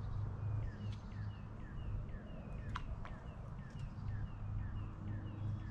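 A bird repeats a short downward-slurred whistled note, about three times a second, over a low steady rumble. A few sharp clicks come near the middle.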